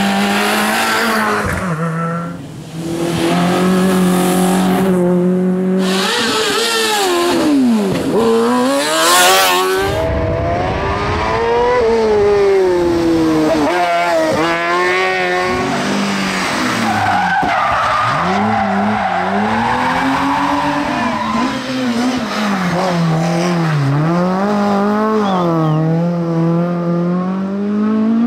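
Rally and hillclimb competition cars driven hard through tight bends one after another, engines revving high and dropping sharply with each gear change and lift, with some tire squeal.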